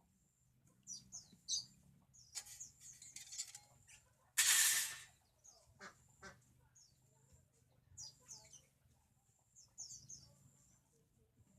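Birds chirping in the background in short high falling calls, with a brief loud burst of hissing noise about four and a half seconds in.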